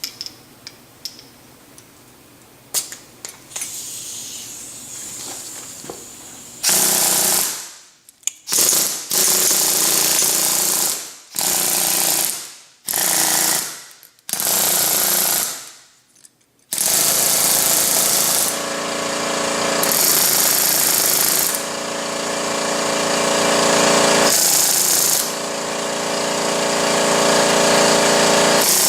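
Unbranded 4X pneumatic air rivet gun, a copy of the Ingersoll Rand AVC-12, hammering rapidly under air pressure. It starts with a few faint clicks, then comes in five short trigger bursts from about seven seconds in, and runs almost without a break from about seventeen seconds in.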